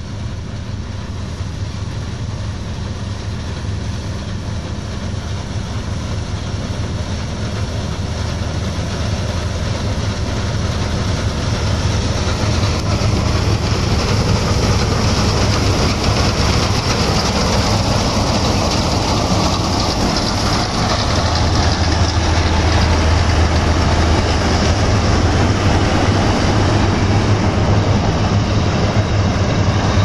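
Claas Senator combine harvester running while cutting wheat: its diesel engine and threshing machinery give a steady mechanical noise that grows louder over the first half as it comes towards the listener, then stays loud as it passes close by.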